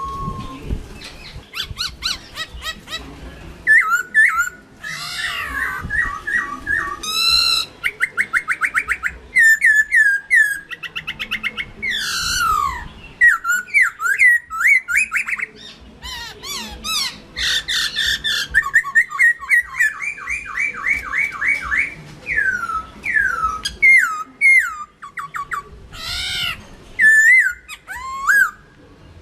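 Chinese hwamei singing its loud, varied song: phrases of rapidly repeated whistled notes and sweeping slurs, separated by short pauses.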